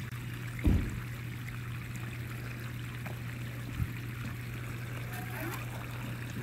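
Water trickling out of a sump pump's black 1¼-inch discharge pipe into a concrete street gutter, the pump's outflow reaching the curb. A steady low hum underlies it, with a low thump less than a second in and a faint click near the middle.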